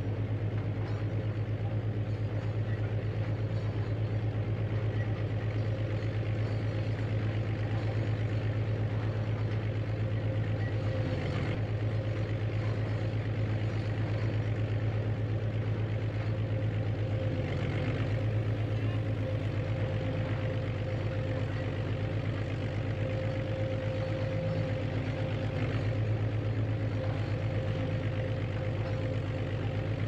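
Recorded heavy machine engine sound effect, running steadily at idle with an even low pulsing, played back by the model backhoe's Arduino-driven DF Player Mini sound module.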